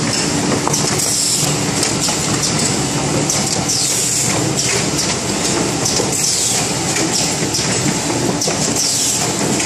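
Automatic hardcover board case making machine running: a steady, loud mechanical clatter with repeated high hissing sweeps.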